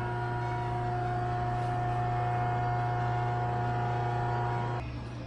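Steady electric hum from metal-shop machinery, several constant tones over a low drone. The higher tones cut off abruptly near the end, leaving the low hum.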